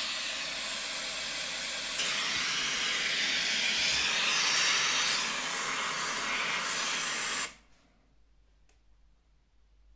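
Pink noise played through an iPhone 12 Pro Max's built-in speakers: a steady, even hiss that cuts off suddenly about seven and a half seconds in.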